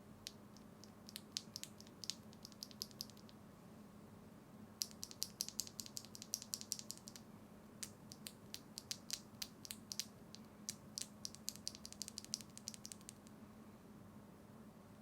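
Small plastic keyboard switches (HMX Xinhai linears) being handled, giving quick light clicks and rattles in three bursts of many clicks each.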